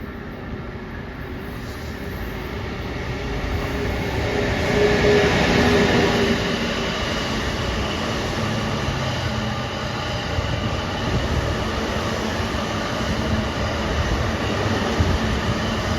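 An EF64 electric locomotive hauling a towed E235 series 1000 train set, passing on the rails with steady rolling wheel noise. The noise swells to its loudest about five seconds in, then holds fairly steady.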